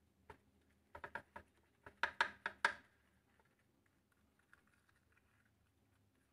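A quick run of about ten light clicking taps, loudest in a burst of five near the middle of the run: bell pepper halves and a basting brush knocking against a ceramic plate while the peppers are brushed with olive oil.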